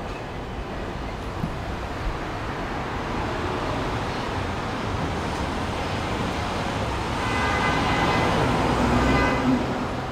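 Busy street traffic noise that swells from about six seconds in, with a vehicle horn sounding for about two seconds near the end.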